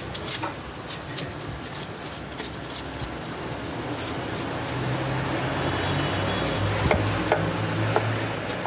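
Kitchen knife scraping the scales off a giant gourami on a wooden cutting board: rapid rasping strokes with scales clicking off, busiest at the start. A low hum sits under the scraping through the second half.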